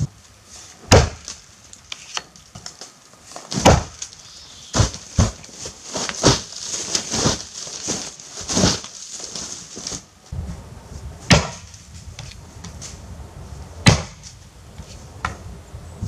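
Helko Werk Tasmanian axe chopping into a standing tree trunk to fell it: sharp, irregular strikes a second to a few seconds apart, with lighter knocks between them.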